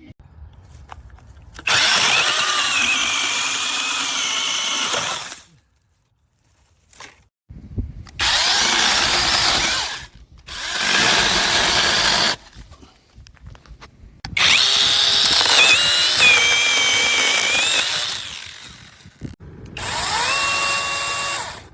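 Brushless cordless mini chainsaw running in five bursts of a few seconds each, cutting wood, with a high motor whine that wavers in pitch.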